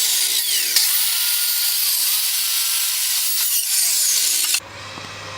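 A power tool working into 2x4 lumber, with a loud hiss and its pitch sliding down and up. It cuts off abruptly near the end.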